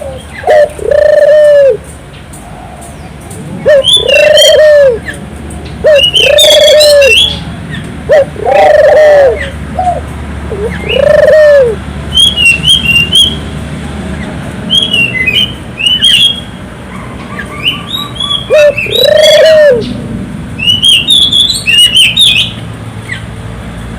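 Barbary doves (burung puter) cooing over and over in loud, rounded coos that rise and fall in pitch, each about a second long and coming in runs. Quick high chirps of smaller birds fall between the coos.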